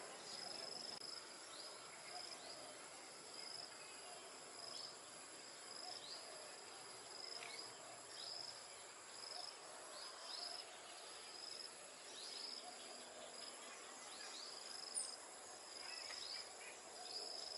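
Steady high-pitched insect trilling, with short falling chirps repeating about once a second.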